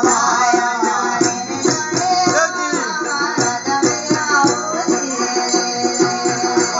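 Himachali musadha folk singing: a man and a woman singing a drawn-out, sliding melody to a plucked long-necked lute, small brass hand cymbals and a small drum beating an even rhythm.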